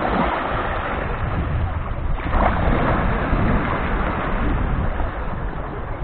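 Small Black Sea waves washing onto a sandy beach in calm surf, with wind rumbling on the microphone.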